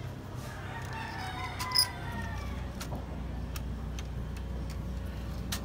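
A rooster crowing for about two seconds in the background, over light clicks of steel rods being handled on a wooden jig; the loudest sound is a single sharp click near the end of the crow.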